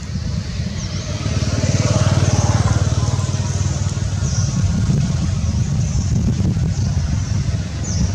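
A motor engine running nearby, a steady low rumble with a fast even pulse that grows a little louder about two seconds in.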